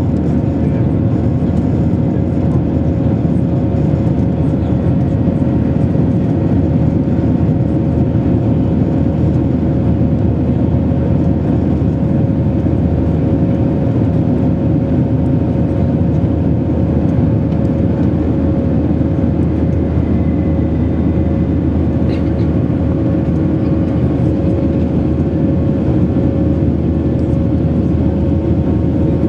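Steady noise of an Airbus A321's jet engines and rushing airflow heard inside the cabin from a window seat over the wing as the airliner climbs after takeoff. A steady hum tone runs through it.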